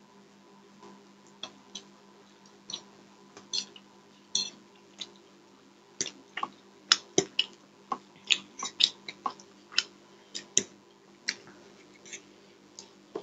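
Close eating sounds of tandoori chicken being chewed and bitten by hand: an irregular run of sharp wet clicks and smacks, sparse at first and coming thick and fast from about halfway through.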